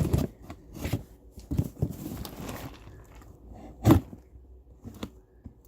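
A cardboard shipping box being handled and opened: scattered knocks and rustles, a short stretch of rustling about two seconds in, and a loud thump near four seconds.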